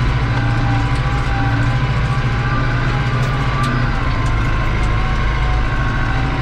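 New Holland TD85 tractor's turbo diesel engine running steadily under load, heard from inside the cab while it pulls a disc harrow. A steady turbo whistle sits over the deep engine hum, with faint scattered ticks.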